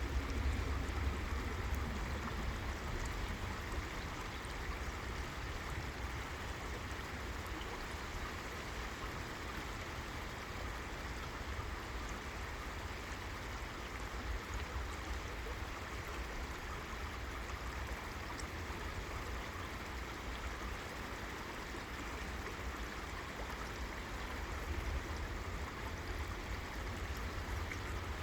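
River water flowing steadily over rocks, an even rushing sound, with a low rumble underneath that is strongest at the start and eases after the first few seconds.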